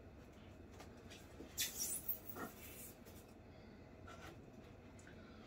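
Packaging being handled: a brief burst of scratchy rustling and scraping about one and a half to two and a half seconds in, with a few faint clicks around it.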